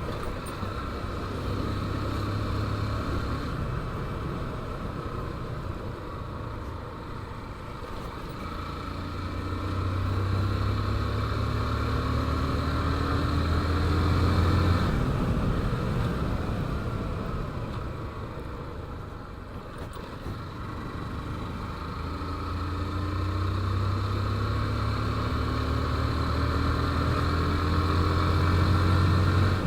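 A 150 cc motorcycle's single-cylinder engine running under way with wind noise. The engine climbs in pitch twice as the bike accelerates, easing off in between.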